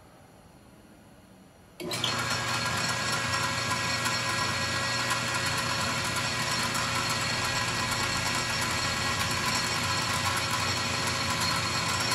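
A metal lathe switched on about two seconds in, its motor and gearing then running steadily with a constant mechanical hum and whine.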